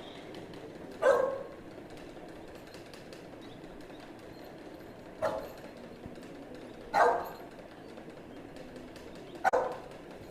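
A dog barking: four single barks spaced a few seconds apart.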